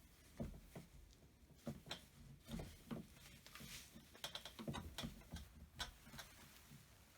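Irregular light clicks, taps and soft knocks from chainsaw parts and hand tools being handled, about a dozen scattered strokes.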